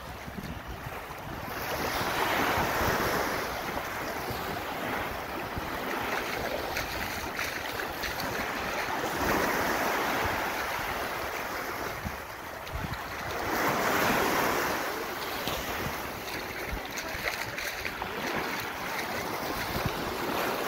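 Small waves breaking and washing over the edges of a sandbank, the surf swelling louder and fading every few seconds, with wind buffeting the microphone.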